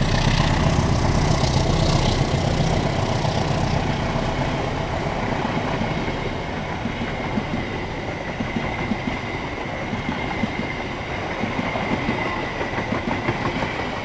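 Passenger train cars passing close by at speed, wheels clattering over the rails. A heavy low rumble fades over the first few seconds, a faint steady high whine runs under it, and the clatter comes through more clearly near the end.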